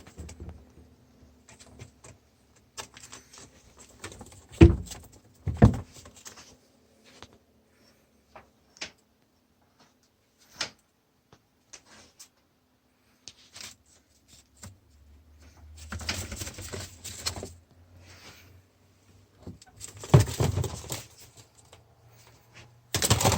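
Scattered clicks, knocks and rustling, with two louder thumps about five seconds in and bouts of scuffling later on.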